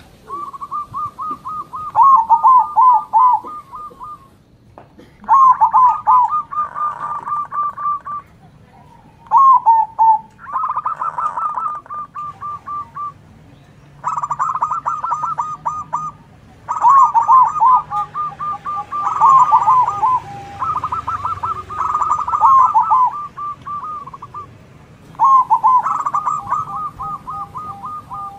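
Zebra doves (perkutut) singing their rapid, trilling cooing song in repeated phrases of a few seconds each, with short pauses between. The birds answer one another, and some phrases overlap at slightly different pitches.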